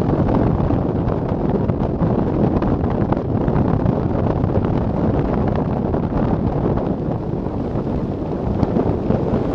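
Wind buffeting the microphone of a Garmin VIRB action camera on a recumbent bicycle descending at about 37 to 38 mph: a loud, steady, low rushing noise.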